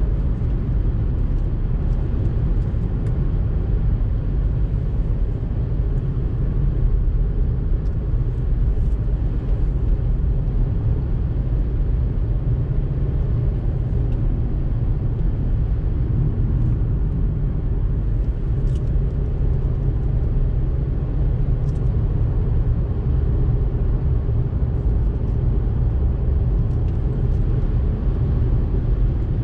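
Steady road and engine noise inside a car's cabin at cruising speed, a low even rumble of tyres and engine, with faint light ticks now and then.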